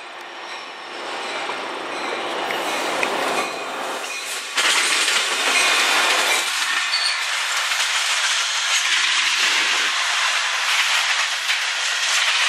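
Canadian National freight train rumbling toward the listener, then its diesel locomotives and freight cars rolling past close by with loud wheel and rail noise. The sound jumps suddenly louder about four and a half seconds in.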